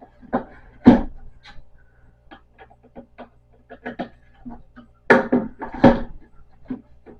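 Wooden panels of a glued printer stand knocking, creaking and clattering as they are worked loose and pried apart, with a loud bang about a second in and a burst of heavier knocks around five to six seconds.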